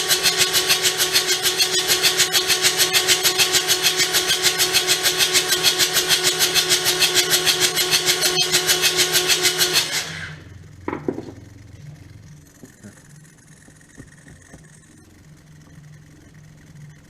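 Starter motor cranking a Kubota D722 three-cylinder diesel in a fast, even pulse with a steady whine, the engine not catching; the cranking stops abruptly about ten seconds in, followed by a short knock.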